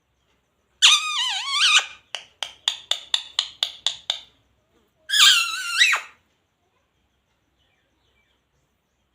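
Indian ringneck parrot calling: a warbling, pitch-bending call about a second long, then a quick run of about eight short sharp notes, then another warbling call.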